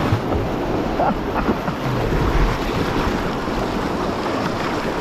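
Whitewater rushing and churning around a kayak running a small river rapid, a steady loud rush with wind buffeting the camera microphone.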